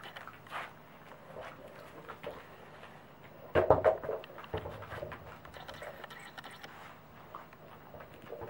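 Pembroke Welsh corgi's claws clicking and pattering on a wooden floor as it noses about, with a louder clatter about three and a half seconds in.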